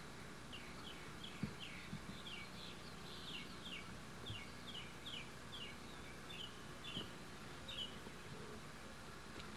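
A bird singing faintly: a long run of short falling chirps, about two a second, over a steady low hiss, with a couple of faint knocks, the first about a second and a half in.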